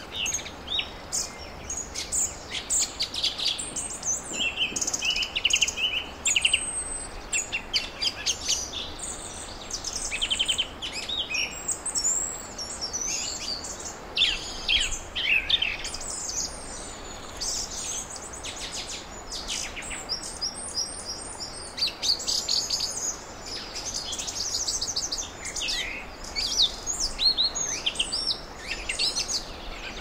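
Small songbirds chirping and singing, many short high-pitched calls and quick trills overlapping, over a low steady background of outdoor noise.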